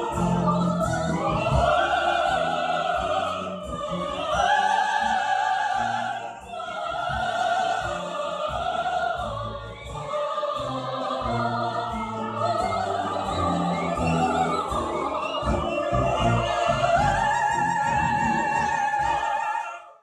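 Operatic singing with orchestral accompaniment: a voice holds long notes that rise and fall over the orchestra.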